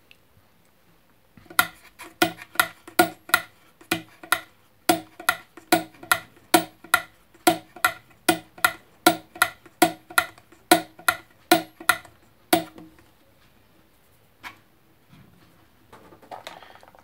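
Electric kettle's plastic on/off switch clicked back and forth over and over, a sharp click with a short ring about three times a second, stopping about twelve seconds in, with one last click a little later. The switch has just been oiled because its contact was not closing properly.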